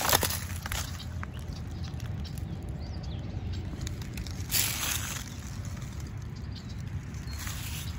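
Footsteps and rustling in dry leaf litter: three short crunching rustles, at the start, midway and near the end, over a steady low rumble.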